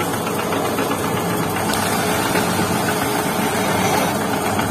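Motor-driven roll-cutting machine running steadily, spinning a vinyl sticker roll on its steel shaft while a blade cuts it to size.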